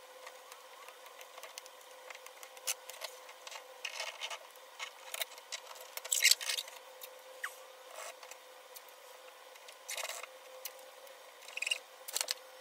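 Yellow masking tape being pulled off the roll, torn and pressed onto a car's paint: scattered short crackles and rips, the loudest about six seconds in. A faint steady hum runs underneath.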